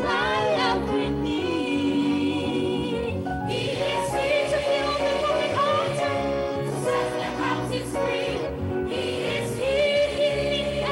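Gospel choir singing a praise song, lead singers on handheld microphones carrying the melody with the full choir behind them.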